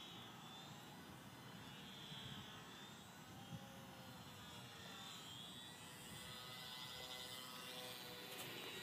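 Faint whining buzz of a ParkZone Ultra Micro T-28 Trojan's small electric motor and propeller in flight, its pitch rising and falling as the plane manoeuvres.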